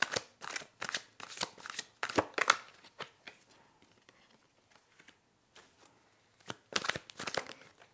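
Tarot cards being shuffled by hand: a quick run of card slaps and riffles over the first three seconds, a lull, then another short flurry near the end.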